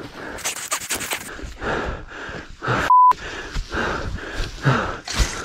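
A person panting heavily in quick, repeated breaths, with a short steady censor beep about three seconds in covering a word; the beep is the loudest sound.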